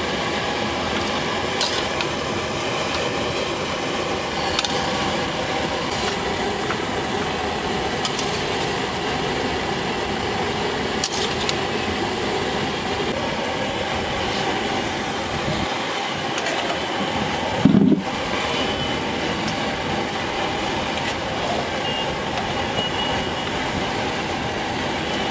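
Chicken pieces frying in a large aluminium wok: a steady sizzle, with a few light clicks of a metal spatula. A brief louder low sound comes about two-thirds of the way through.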